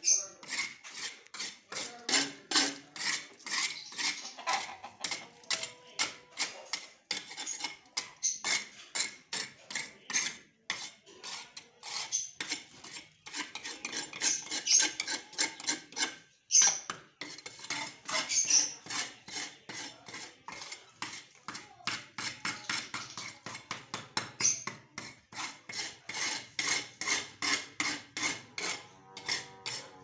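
Hand scraper with a flat metal blade scraping a dirty whitewashed wall in quick repeated strokes, about two or three a second, with a few short pauses.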